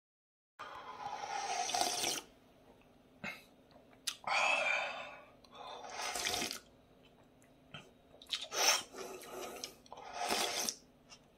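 Slurping milky oxtail broth straight from the rim of a bowl: several long, noisy sips with short pauses between.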